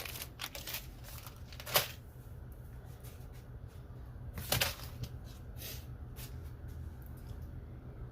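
Plastic packaging and tool cases being handled: a few sharp rustles and clicks, the loudest about two seconds in and again about four and a half seconds in, over a steady low hum.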